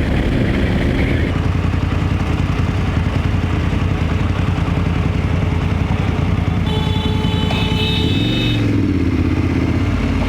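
BMW F 850 GS parallel-twin motorcycle engine running steadily in traffic. A steady high tone sounds for about two seconds after six seconds in.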